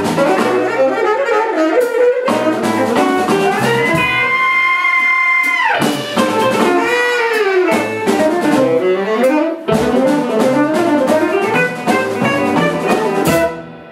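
Live jazz-fusion band playing, with a saxophone on the lead line over a drum kit and electric guitar. The saxophone holds a long note a few seconds in, then plays gliding phrases, and the band stops together just before the end.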